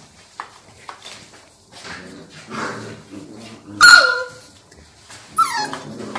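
Barbet dogs at play, with light scuffling early on, then a loud, sharp bark that falls steeply in pitch about four seconds in, and a second, shorter falling yip about a second and a half later.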